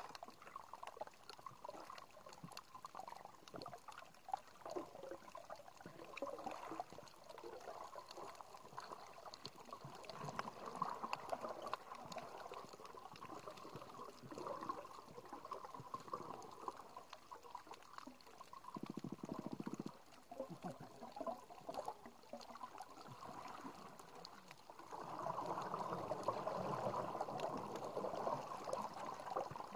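Underwater sound from a camera resting on a shallow coral reef: a continuous wash of moving water and bubbling, dotted with many small crackling clicks. A short buzz comes about two-thirds of the way through, and the watery wash grows louder near the end.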